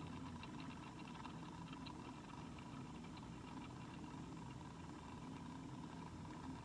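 Small motorized display turntable running with a faint, steady low hum, with a few light ticks in the first couple of seconds.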